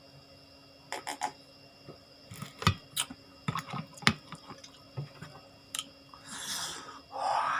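Close-miked eating: chewing with a run of sharp wet mouth clicks and smacks, then two breathy rushes near the end.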